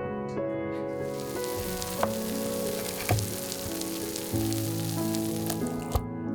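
Food sizzling and crackling in hot fat in a pan, a steady hiss with scattered pops that cuts off abruptly near the end.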